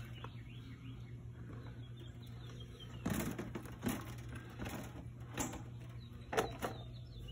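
Light knocks and clatter of a frozen lasagna tray being slid into a solar oven and its metal reflector panels being folded down. The first few seconds are quiet, then come about six separate knocks spread over the last four seconds.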